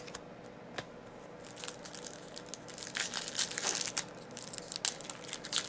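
Foil wrapper of an Upper Deck hockey card pack being torn open and crinkled by hand, a dense run of sharp crackles starting about a second and a half in.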